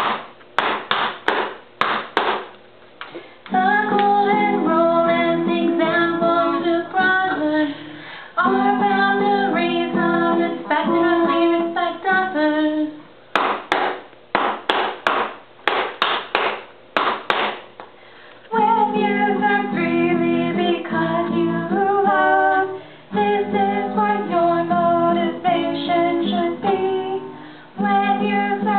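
Women singing a song together to a strummed acoustic guitar. Twice the singing stops for a few seconds of sharp rhythmic beats, about three a second.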